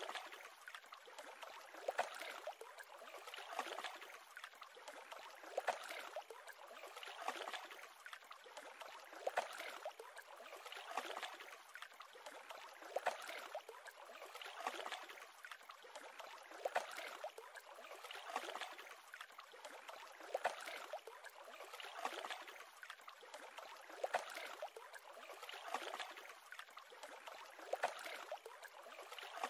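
Small waves lapping against a lake shore, a soft splash and wash about every two seconds.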